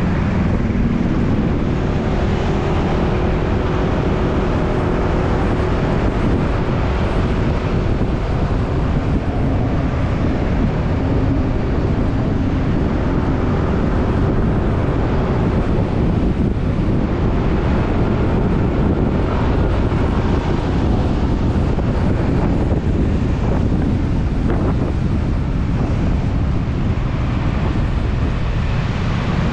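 Steady wind noise on the microphone of a moving motorcycle, with the motorcycle's engine running and road traffic around it.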